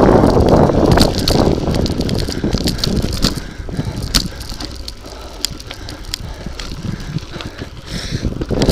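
Bicycle tyres rolling over a loose gravel track, crunching and rattling with scattered clicks. Wind rushes over the microphone, loud for the first couple of seconds, dying down about three seconds in and rising again at the very end.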